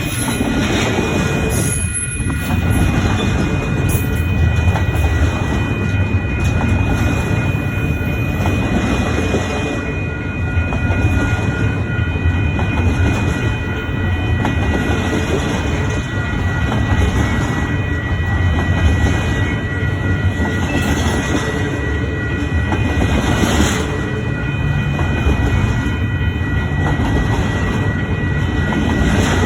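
Long intermodal freight train rolling past: a steady rumble of railcar wheels with clicking over the rail joints and a thin steady high whine over it.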